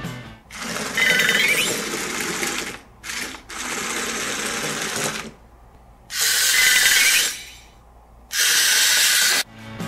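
Small gear motor of a remote-control toy spider whirring in several bursts of a second or two, with short pauses between. A couple of the bursts start with a rising whine.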